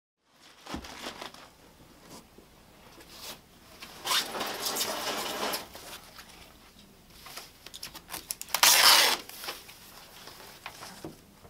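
Packing materials being handled: foam wrap sheet rustling and scraping, with scattered light knocks and clicks. Two longer noisy strokes stand out. The first runs about a second and a half, starting about four seconds in. The second is shorter and louder, about eight and a half seconds in.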